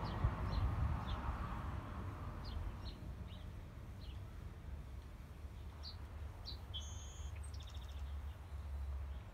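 Small birds chirping: scattered short high chirps, with a clearer two-note whistle and a brief buzzy trill about seven seconds in, over a steady low rumble.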